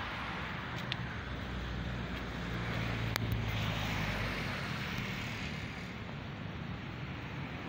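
A motor vehicle's engine running, swelling in loudness a few seconds in and then fading, over a steady outdoor traffic hum. A single sharp click about three seconds in.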